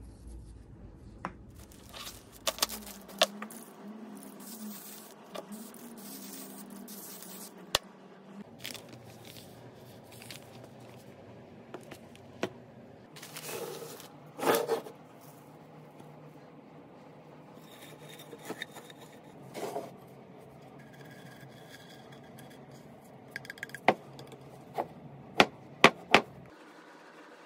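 Workshop handling sounds: scattered scrapes and rubbing with short clicks and knocks as tools and materials are moved about on a workbench. A quick run of sharp knocks near the end.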